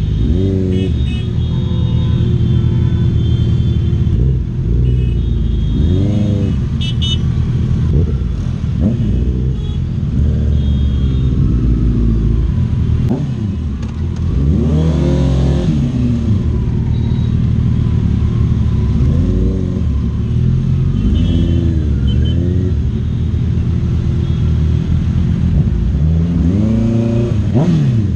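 Inline-four sportbike engines, a Honda CBR650R and a Suzuki Hayabusa, idling in slow traffic and blipped several times, each rev rising and dropping quickly back to idle.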